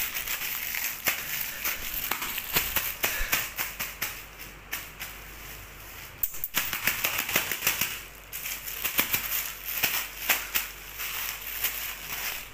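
Rapid, irregular clicking and tapping of puppy claws and paws on a hard marble-tile floor, with a short lull about halfway through.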